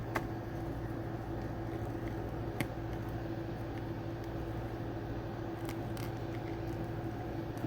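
A steady low electrical hum, with a few light clicks of small plastic doll pieces being handled as a tiny crown is pushed onto a doll's head.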